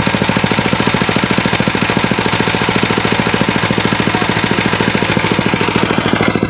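A small engine running steadily close by, with a fast, even chugging beat.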